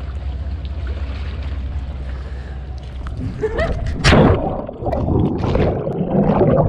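A steady low rumble, then irregular water splashing and sloshing from about three and a half seconds in, loudest about four seconds in.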